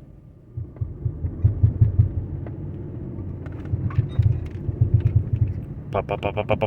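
2012 Dodge Durango driving through a turn, heard from inside: a low rumble with irregular knocks and clunks from underneath. The knocking comes from a disintegrated driveshaft center support (carrier) bearing.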